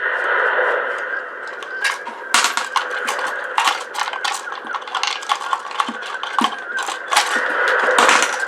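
Small plastic and metal parts of an ice maker being handled and pried apart: irregular clicks, knocks and rattles.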